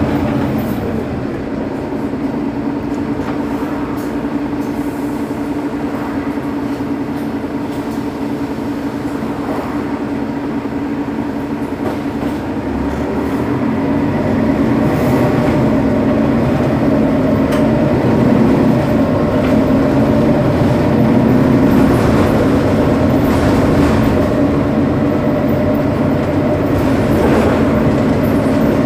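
Mercedes-Benz Citaro Facelift bus's rear-mounted OM 457 hLA six-cylinder diesel idling at a standstill: a steady drone that grows a little louder about halfway through.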